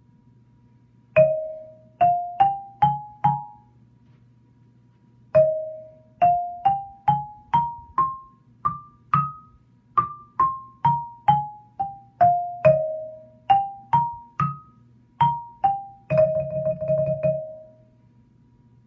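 Xylophone struck with mallets, playing a one-octave major scale one note at a time. It starts with five rising notes and a pause. Then comes a full scale up and back down, a few more notes, and a quick roll on the low tonic about two-thirds of a second long.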